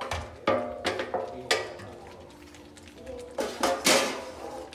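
Wooden spatula knocking and scraping against a stainless steel tray and a wok as vegetables are pushed into the pan: a string of sharp clanks, each with a short metallic ring. The loudest cluster comes near the end, as the spatula strikes the wok.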